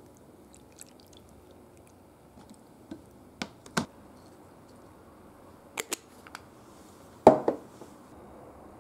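Tableware handling: a few light clicks and taps as a plastic container and a shichimi pepper shaker are worked over a ceramic bowl, then a louder double knock about seven seconds in.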